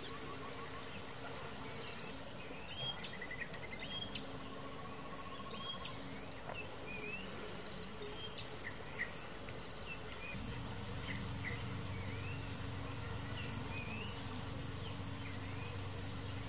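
Tropical forest ambience: insects trilling and birds giving many short chirps. A low steady hum joins about ten seconds in.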